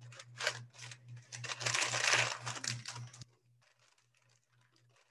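Glitter slime being squished and mixed on parchment paper, the paper crinkling in quick, irregular scrunches. The crinkling is densest a couple of seconds in and cuts off suddenly a little after three seconds.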